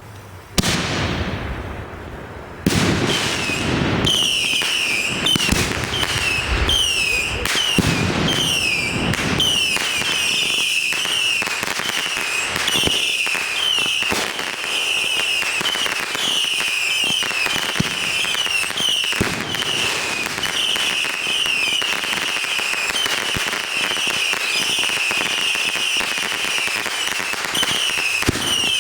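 Consumer fireworks going off: a loud bang about half a second in and another a couple of seconds later, then a continuous rapid barrage of cracks and bangs laced with repeated short falling whistles.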